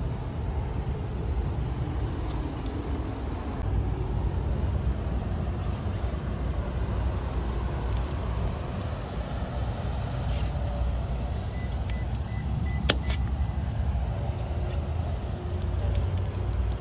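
Steady low rumble of road vehicle traffic, with one sharp click about three-quarters of the way through.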